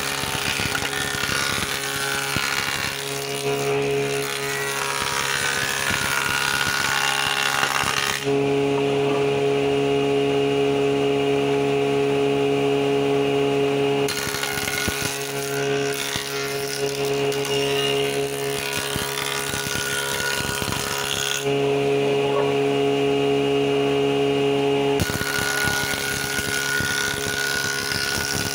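Surface planer (jointer) running with a steady hum while a bowed board is fed over the cutter block to plane it straight. The rough cutting noise comes in three long stretches, dropping back to the machine running free at about 8 and 21 seconds in.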